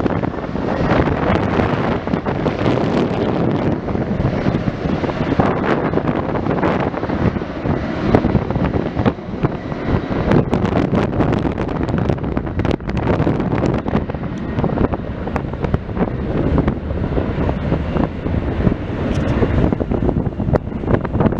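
Wind buffeting the microphone: a loud, uneven rumble with frequent short knocks from the gusts.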